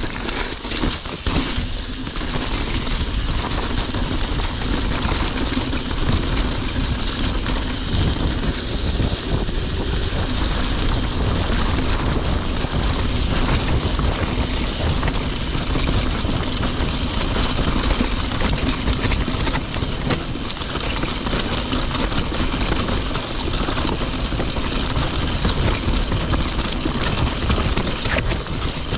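Santa Cruz Bronson mountain bike rolling fast down a rocky, muddy singletrack: steady tyre rumble over stones and the chatter and rattle of the bike's frame and parts.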